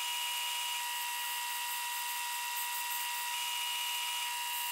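Wood lathe running with a steady whine while a hand-held turning tool cuts a small spinning wooden chess piece, a continuous scraping of the tool on the wood.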